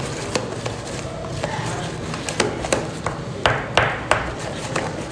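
Pencil stirring thick, sticky glue-and-lotion slime in a bowl: irregular clicks and taps of the pencil against the bowl, with a few louder strokes about two and a half to four seconds in.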